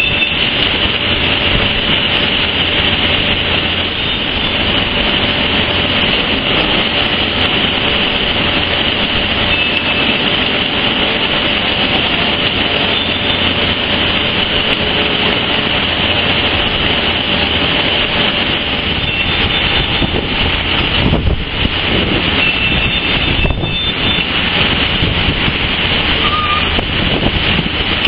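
Heavy construction machinery running steadily: a skid-steer loader, a site dumper and a hopper machine working together in one continuous loud noise.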